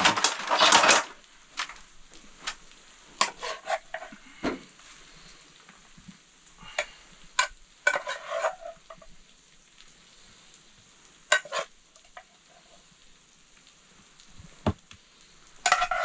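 A spoon stirring and scraping food in a hot frying pan, with a loud burst of stirring and sizzling in the first second. After that come scattered short scrapes and clinks against the pan and plates, over faint sizzling.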